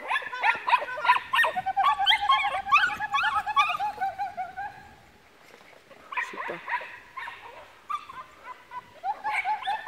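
Small dog barking and yipping excitedly in quick high-pitched calls as it runs an agility course. A long wavering whine runs through the first half, and sparser yips return after a short lull.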